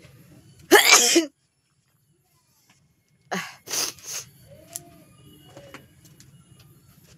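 A person sneezing loudly about a second in, then, after a short gap, three quick breathy bursts of another sneeze.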